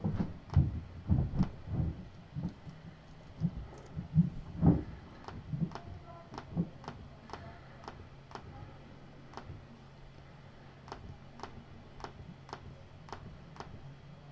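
Light, unevenly spaced clicks of a computer keyboard and mouse, about two a second, stopping near the end. Several duller knocks come first, in the first five seconds, and a faint low hum runs underneath.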